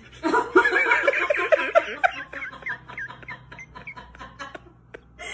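A person laughing in a quick run of giggles, loudest in the first two seconds, then tailing off into quieter snickers.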